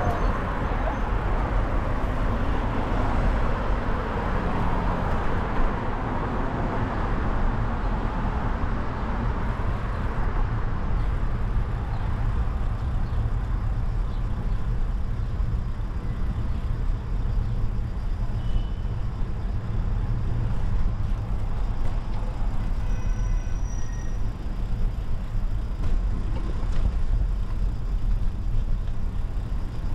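Road traffic going by on a city street, louder in the first few seconds and then easing, over a steady low rumble.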